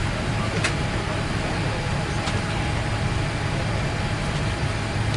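Steady airliner cabin noise inside a Boeing 787 at the gate: the even hiss and low hum of the cabin ventilation, with two faint clicks, the first about half a second in and the second about two seconds in.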